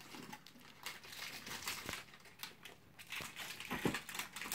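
Small plastic blind-bag packet crinkling as it is worked open by hand, in a run of irregular crackles.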